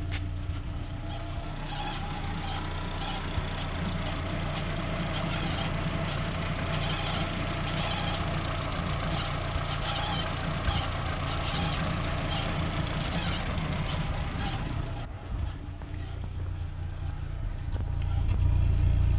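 Renault Twingo engine running steadily with a low hum and a faint recurring higher-pitched noise, a strange noise that the owner links to a misfire. About 15 seconds in, the sound changes and the low engine note grows louder near the end.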